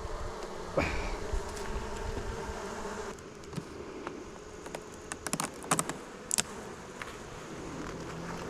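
Honeybees buzzing steadily around an open hive, with a few sharp clicks and light knocks, a cluster of them about five to six and a half seconds in.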